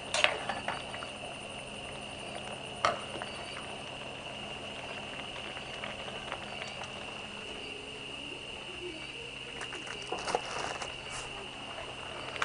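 Sichuan hotpot broth simmering in a steel pot on a gas burner, a steady bubbling hiss. The metal ladle knocks sharply against the pot twice in the first few seconds.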